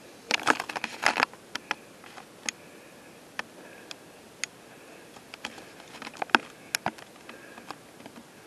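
Irregular sharp clicks and taps in a quiet room, a quick cluster in the first second or so and another about six seconds in, with scattered single ticks between.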